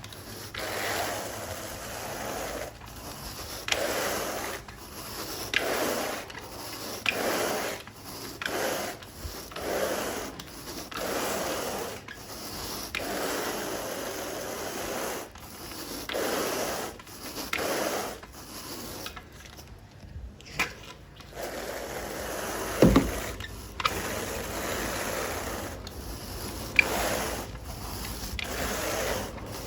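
Carpet rake dragged through carpet pile in repeated strokes, a scratchy rasp on each pull, about one every second and a half. A sharp knock about three quarters of the way through.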